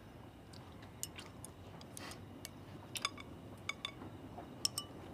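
Faint, scattered light clicks and clinks of wooden chopsticks against ceramic bowls as people eat, some coming in quick pairs.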